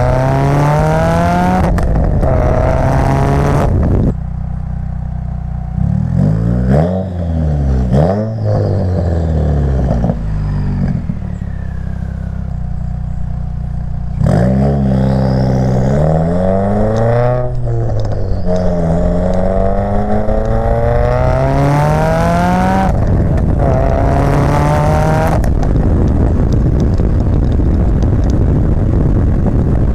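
Subaru WRX turbocharged flat-four running through a catless J-pipe and a Greddy RS-Race catback exhaust, accelerating hard. The pitch climbs and then drops sharply at each upshift, several times over, with the revs rising and falling in between.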